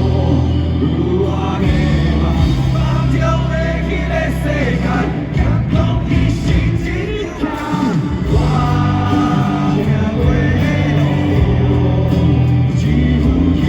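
Live rock band playing a song with a lead singer over held bass notes and drums.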